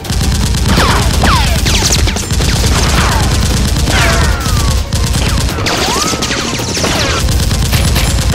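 Movie-style automatic gunfire sound effects dubbed over toy foam-dart blasters: a loud, dense, continuous string of rapid shots, with several short falling whines mixed in.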